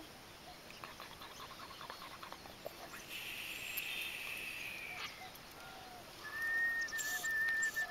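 High, thin animal calls from about six seconds in: one note held with short breaks, with short lower chirps repeating around it.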